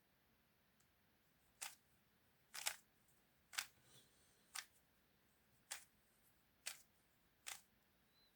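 Plastic pieces of a 3×3 puzzle cube clicking, seven sharp clicks about a second apart, a couple of them doubled, as the cube is put back together.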